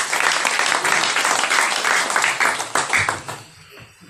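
Small audience applauding: many quick hand claps together, dying away about three seconds in.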